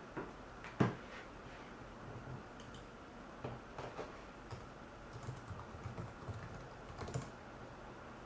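Faint, irregular keystrokes typed on a computer keyboard, with the sharpest click about a second in and clusters of taps later.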